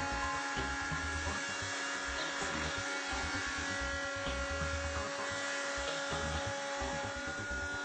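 BDS AutoCUT 500 bevel-edge milling machine running as it mills a weld-prep chamfer along a plate edge: a steady motor whine with the rough noise of the cutter.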